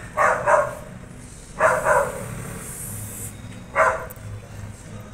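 A dog barking a few times in short bursts spaced a second or two apart, some barks coming in quick pairs.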